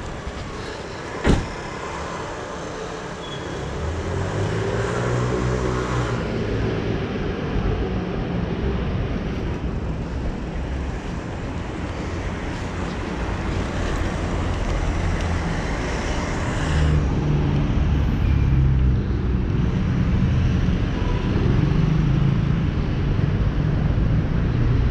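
Wind buffeting the microphone and road noise while riding along a city street, with a single sharp knock about a second in. The rumble grows louder over the second half.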